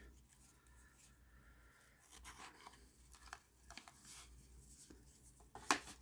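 Faint rustling and scuffing of cardboard presentation boxes being handled and opened, with one louder brief handling sound near the end.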